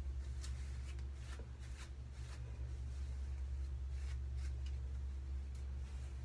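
Hands working through thick natural curly hair, making soft, irregular rustles about twice a second over a steady low hum.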